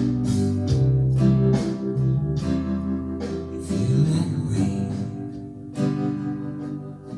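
Acoustic guitar strumming chords in an instrumental passage, no singing, growing quieter over the last couple of seconds.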